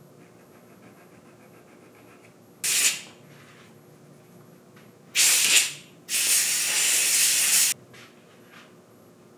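Compressed-air blow gun blasting air in three bursts: a short one, another, then a longer one of about a second and a half, blowing dust off a tabletop.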